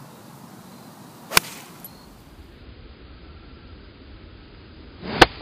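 Two golf iron shots, each a single sharp click of the clubface striking the ball off turf. The first comes about a second and a half in; the second, louder one comes near the end, with a short rush of noise from the swing just before it.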